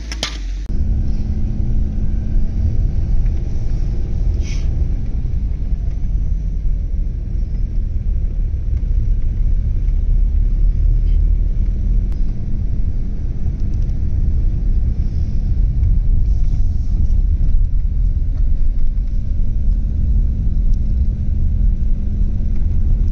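Car driving, heard from inside the cabin: a loud, steady low rumble of road and engine noise.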